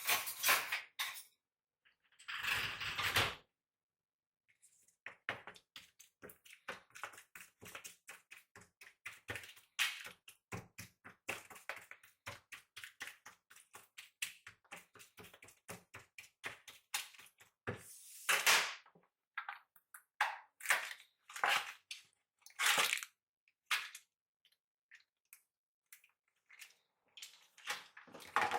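Kitchen knife chopping on a cutting board in a quick, even rhythm of several chops a second, with a few longer rustling or handling noises and separate knocks in between.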